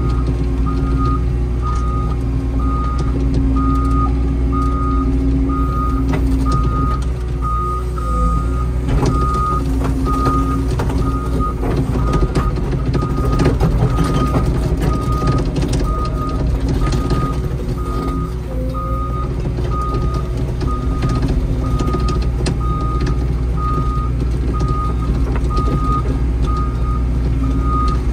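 Excavator's diesel engine running, heard from inside the cab, with its travel alarm beeping steadily about once a second as the machine moves. Knocks and rattles come through in the middle.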